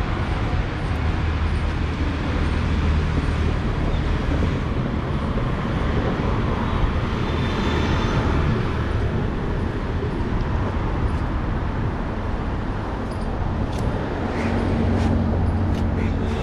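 Steady road traffic noise with a heavy low rumble, growing slightly louder with a low engine hum near the end.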